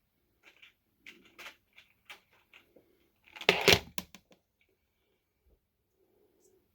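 Hands handling electrical wires and connectors at a switch box: a string of short clicks and rustles, the loudest cluster a little past halfway, then it goes quiet.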